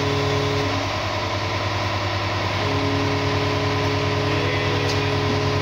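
Fire engine's aerial ladder truck engine running steadily at a constant speed, a low pulsing hum. A pair of higher steady tones drops out about a second in and comes back near three seconds.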